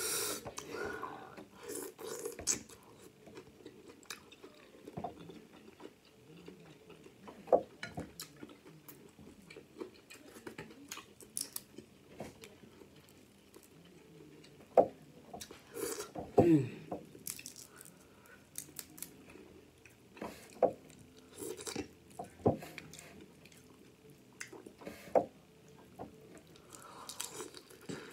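Close-up eating sounds of snow crab: wet chewing and lip-smacking of the meat, with scattered short cracks and clicks from crab shells handled by hand.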